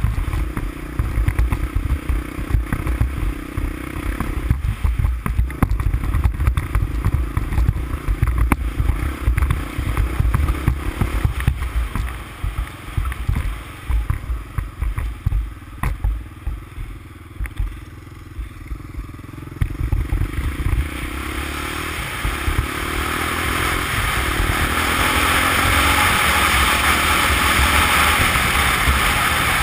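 A 350X ATV's engine running as it is ridden over snow and ice, with heavy wind buffeting on the camera microphone and scattered knocks from bumps. About two-thirds of the way in, the engine note climbs in several rises as the quad speeds up, and a steady rushing noise builds with the speed.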